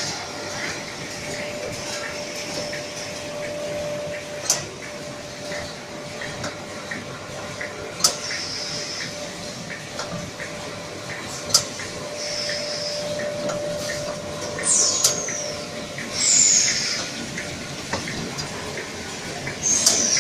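Automatic facial tissue film packing machine running in cycles. A sharp clack comes about every three and a half seconds, each followed by a short high hiss, over a steady mechanical hum.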